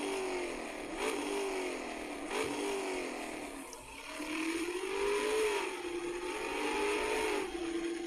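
A car engine revving, its pitch rising and falling in short blips about once a second, then in longer, higher swells from about halfway through.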